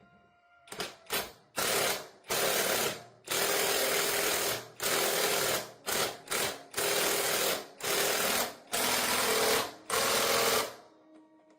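A power tool run in about a dozen short bursts, each from a fraction of a second to over a second long, starting and stopping in quick succession.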